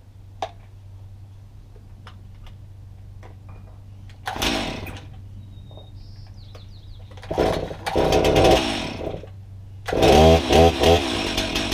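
Gas chainsaw idling, then revved in short bursts about four seconds in and again about seven seconds in. About ten seconds in it runs at full throttle as the bar is lowered into a log, cutting firewood.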